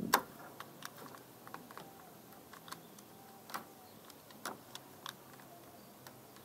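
Irregular light clicks and taps of tools and wood being handled at a workbench, with the sharpest click just after the start.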